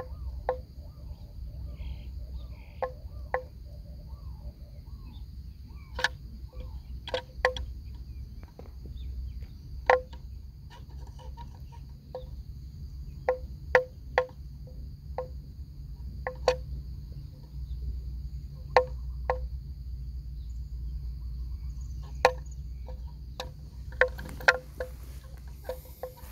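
Water buffalo tearing off mouthfuls of grass as it grazes: crisp tearing snaps at irregular intervals, often two or three in quick succession, over a steady high drone of insects.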